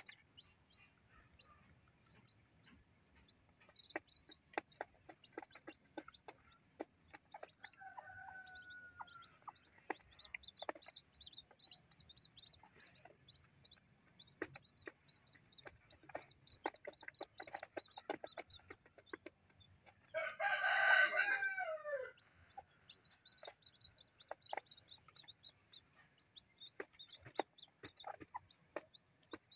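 Native chicken chicks peeping steadily in short high notes while pecking feed grains off cardboard, a rapid patter of small taps. About twenty seconds in, a rooster crows once for about two seconds, the loudest sound, its pitch falling at the end.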